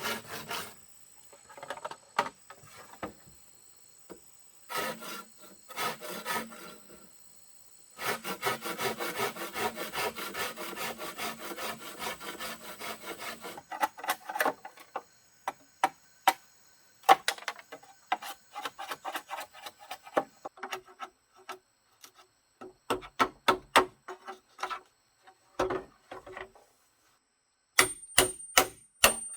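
Wood being worked with a hand tool, in spells of rapid scraping strokes like hand-sawing. The longest spell runs for about five seconds. It is followed by a string of irregular sharp knocks and taps on wood.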